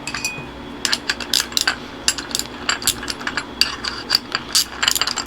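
Irregular metallic clicks and clinks of hand tools on steering-column parts as a part is taken loose, some in quick clusters.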